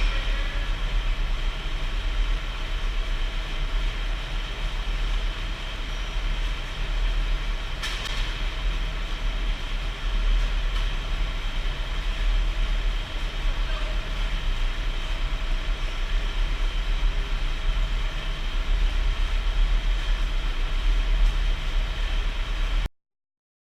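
Steady low rumble and noise of heavy industrial machinery running, with one brief clank about a third of the way in, cutting off abruptly near the end.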